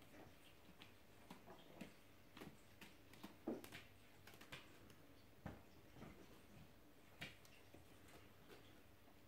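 Near silence with scattered faint clicks and soft taps, a few a little louder, from cats moving and pawing on a tiled floor.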